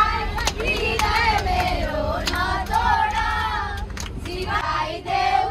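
A group of children's and women's voices singing together, with long held, sliding notes.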